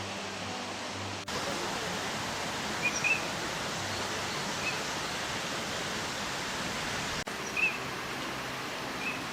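A few short, high bird chirps, two close together about three seconds in and more scattered later, over a steady rushing outdoor noise.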